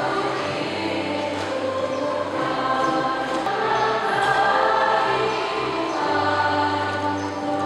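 Church choir singing an offertory hymn with accompaniment whose low bass notes are held and change every few seconds.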